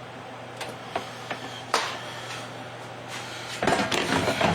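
Kitchen handling sounds: a few light clicks and knocks, one sharper than the rest, then about a second of rustling and clattering near the end, over a steady low hum.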